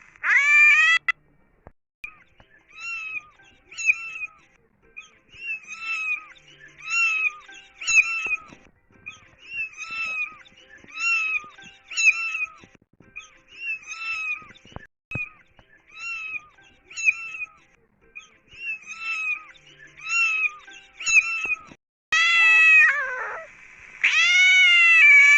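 Kitten mewing: many short, high-pitched mews in quick clusters of two or three, a few a second. They are framed by louder, longer cat meows, one ending about a second in and two more near the end, one of which falls in pitch.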